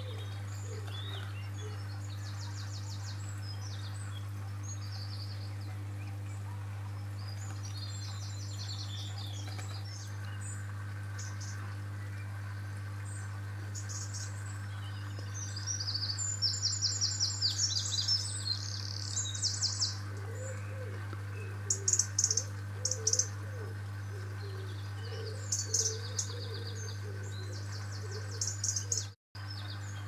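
Small songbirds singing in short, high, trilled phrases, sparse at first and loudest and most frequent in the second half, over a steady low hum. The sound cuts out for an instant near the end.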